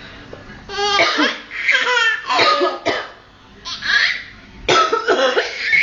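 A young child coughing and breaking into giggling laughter, in a string of short high-pitched bursts starting about a second in.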